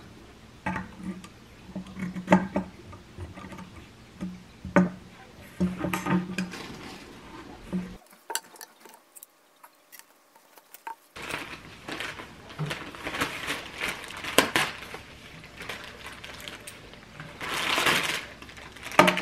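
Aluminium folding laptop stand being adjusted by hand, its metal arms and hinges clicking and clinking in sharp knocks. After a short silence there is handling noise and the crinkling rustle of a plastic mailer bag being opened, loudest near the end.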